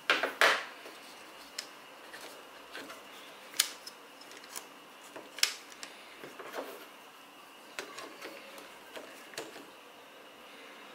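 Handling of a Smove smartphone gimbal's plastic phone clamp as it is adjusted, opened and a smartphone fitted into it: two sharp clicks at the very start, then scattered lighter clicks and knocks.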